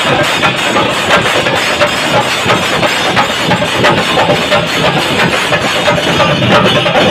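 Several chenda drums beaten fast with sticks by a chenda melam troupe: dense, continuous drumming with no break.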